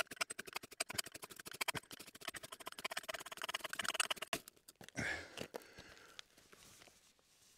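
Ferro rod (flint striker) scraped hard and fast with a knife, many rasping strokes a second, throwing sparks onto wood-shaving tinder to relight a fire. The strokes stop about four and a half seconds in, followed by a brief low rush that fades.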